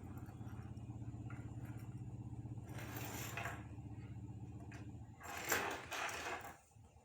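Cat growling low and steadily, with a short hiss about three seconds in and a longer, louder hiss near the end, after which the growl stops.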